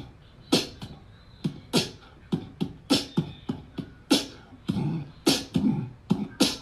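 Beatbox-style percussion: a string of sharp clicks and thuds, about two to three a second, coming closer together toward the end.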